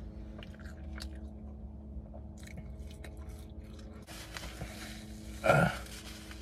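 A person chewing the last bite of a fast-food burger, with small wet mouth clicks over a faint steady low hum. About five and a half seconds in there is one short, louder vocal sound from the throat.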